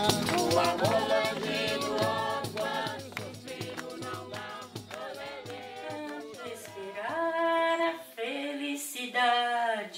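A group of voices singing a folk song together, with shaken percussion keeping time in the first half, then the voices holding long notes on their own.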